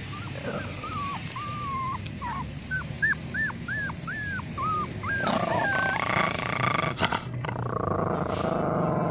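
Dog whining: a run of short, high, arched cries, two or three a second. About five seconds in, a lower, rough growling takes over.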